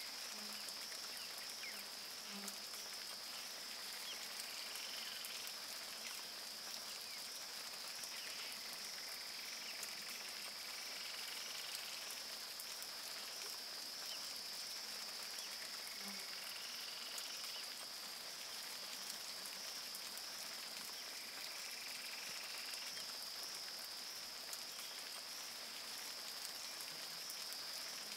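Steady rain falling on a river, a dense patter of drops, under a constant high-pitched insect drone. Short animal calls come and go every few seconds.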